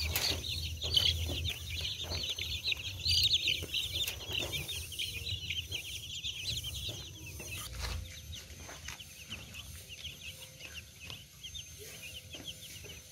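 A flock of young chicks peeping, with many short high chirps overlapping densely. The peeping thins out and grows fainter after about seven seconds, and a few light knocks sound over it.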